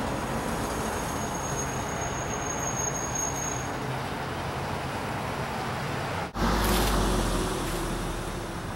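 Traffic on a residential street: a steady hum of cars going by. About six seconds in the sound cuts abruptly to a louder, deeper rumble of a car passing close.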